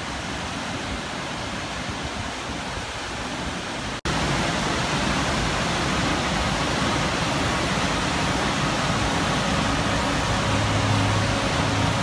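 Two-tier waterfall, about 30 m high, with water pouring steadily into its plunge pool. The sound drops out for a moment about four seconds in and comes back louder. A faint low steady hum joins near the end.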